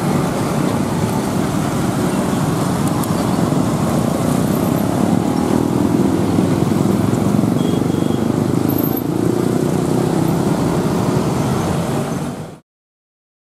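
Dense traffic noise at a railway level crossing: many motorcycle and car engines running while a commuter train passes. The noise cuts off suddenly near the end.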